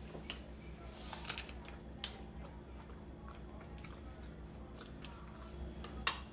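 Faint chewing and biting of food, with a few soft crackles and clicks, the sharpest about a second and two seconds in, over a low steady hum.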